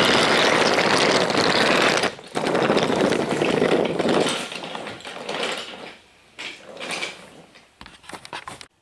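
Wooden toy train cars rolling past on wooden track close by: a loud continuous rattle of wheels over the track, breaking briefly about two seconds in. It then fades into a few scattered clatters and stops near the end.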